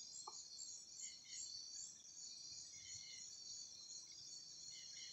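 Faint, steady chorus of night insects such as crickets, high-pitched and pulsing, with one brief faint click a fraction of a second in.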